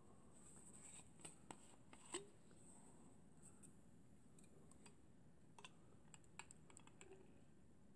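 Near silence, broken by faint, scattered small clicks and taps as a bottle and a dropper are handled.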